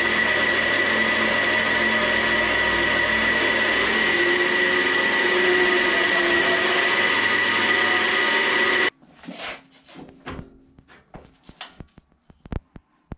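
Wood lathe running while a bit in the tailstock bores into the end grain of a dry chestnut blank: a steady hum with a high whine and a cutting hiss. It stops abruptly about nine seconds in, followed by a few light knocks and clicks.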